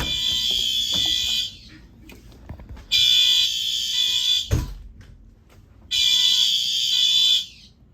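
Several fire alarm horns sounding together in a slow pulsed pattern: three high-pitched blasts of about a second and a half each, one every three seconds. A dull knock falls in the gap between the second and third blasts.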